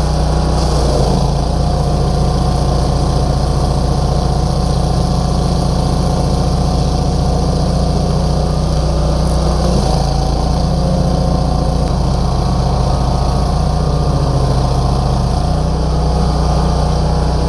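Engine of a heavy forestry machine running steadily at constant speed.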